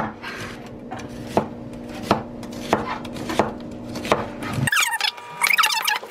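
Cleaver slicing an onion on a wooden cutting board: one chop about every two-thirds of a second over a faint steady hum. Near the end the sound cuts off abruptly and gives way to a quicker run of high chirps and clicks.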